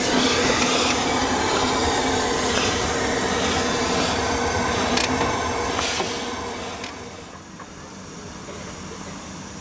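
A 15-inch gauge 0-6-4 saddle-tank steam locomotive moving forward at close quarters: a loud steady steam hiss with a few sharp clanks. The sound falls away about seven seconds in, leaving a quieter steady hiss.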